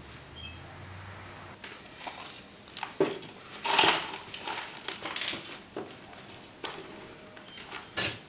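Potting mix being scooped and pressed into small plastic nursery pots, with rustling, crunching and light knocks of the plastic pots against the table. The loudest crunch comes about four seconds in.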